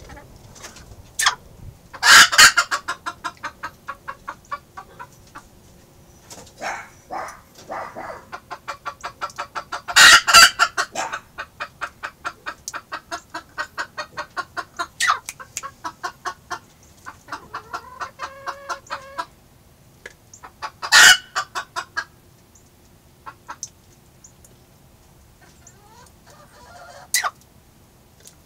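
Booted bantam hen clucking in long rapid trains, about four clucks a second, with three loud squawks about two, ten and twenty-one seconds in. A few short, sharp sneezes come through; she is sneezing after cold weather.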